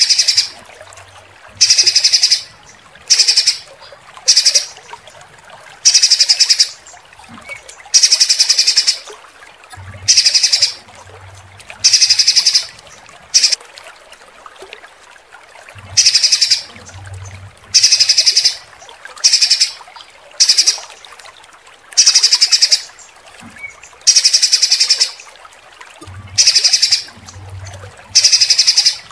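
Songbird calls for masteran training: loud, harsh, rapid-fire high-pitched bursts ('tembakan'), each about half a second to a second long, repeated every one to two seconds over a low steady hiss of flowing water.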